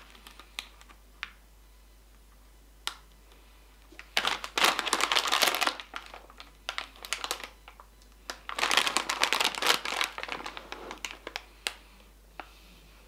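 Crinkly foil snack bag of Takis tortilla chips being handled and crinkled, with scattered crackles and two longer bouts of crinkling, about four seconds in and again about eight seconds in.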